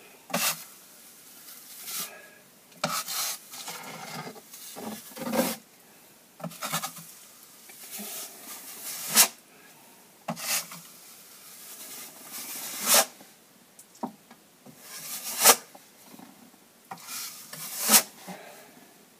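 Drywall knife scraping wet joint compound across a wall in repeated strokes, about one every two to three seconds, several ending in a sharp click. This is the third, finishing coat being smoothed over a patched crack.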